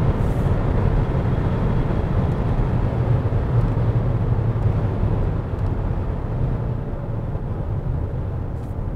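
Steady road and wind noise of a 2020 Kia Sorento cruising at high speed on a highway.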